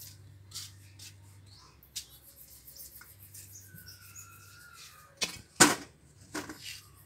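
Metal-framed chair knocking twice against the ground as it is set down, after a few faint scuffs and taps while it is carried.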